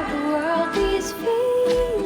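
Background music: a gliding melody over held notes, with a low beat about once a second.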